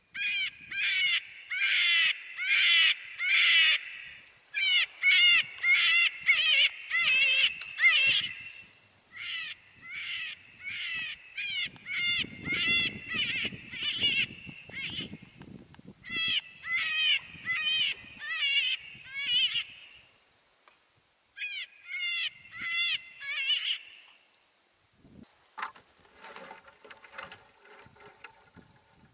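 A coyote call sounding a prey-distress sequence: high, wavering squalls about two to three a second, in runs of a few seconds with short pauses between them. Near the end the calling stops, and there is a sharp click and some faint rustling.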